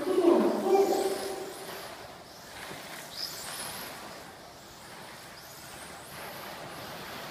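Electric motors of 1/12-scale modified RC pan cars whining around the track, the high whine rising and falling with throttle as they accelerate out of corners. A louder, lower sound comes in over the first second and a half.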